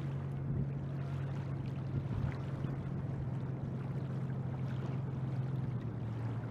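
Steady rush of river water flowing around a wading angler, under a steady low hum.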